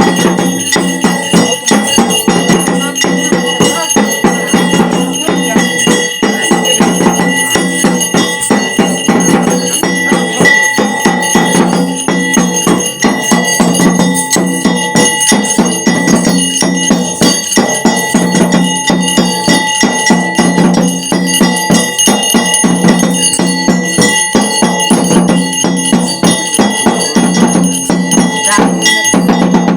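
Ritual music of bells ringing continuously with dense, rapid percussive strikes over a steady low drone; it stops abruptly at the end.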